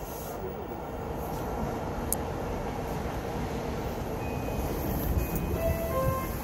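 JR Yamanote Line commuter train pulling out of the station: a steady rumble of motors and wheels on the rails that grows slowly louder as it gathers speed. A few short tones start near the end.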